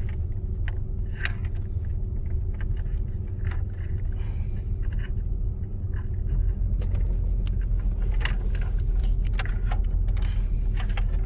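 Steady low rumble under scattered small clicks and rattles of plastic wiring-harness connectors being handled and pushed together.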